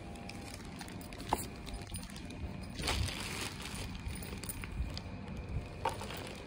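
Handling noise as a Philips induction cooktop is moved about and tipped up: a sharp click about a second in, a short rustle near the middle, and another click near the end.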